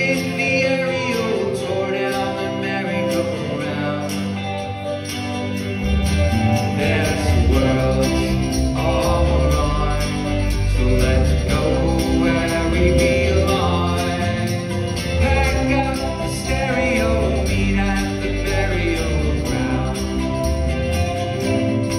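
Live rock band playing, recorded from the audience: acoustic guitar and jingling percussion, with bass and drums coming in about six seconds in.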